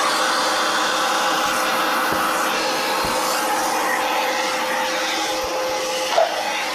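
Vacuum cleaner running steadily while a car's interior is vacuumed, a constant whooshing hum with a steady tone through it.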